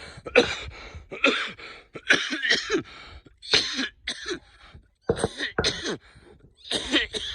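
A man's coughing fit: a run of about seven harsh coughs in separate bursts. It is a nagging cough that he puts down to allergies, not illness.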